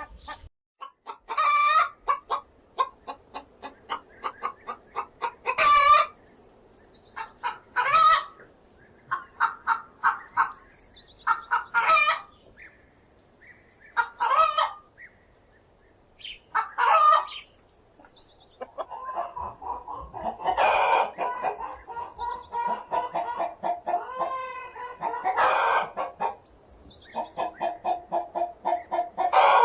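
Hen cackling: runs of quick clucks that build into a long, loud squawk every few seconds, with the calls coming thicker and overlapping in the second half.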